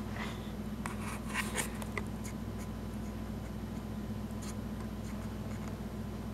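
Indian peacock shaking its fanned train feathers: a dry, scratchy rustling in short bursts about one to two seconds in, and again briefly near four and a half seconds, over a steady low hum.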